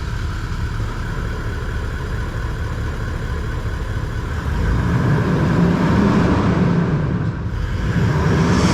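Toyota Land Cruiser Troop Carrier engine running through a freshly fitted 3.5-inch TORQIT performance exhaust, just after starting. It runs steadily, then gets louder as it is revved about four and a half seconds in, and again near the end.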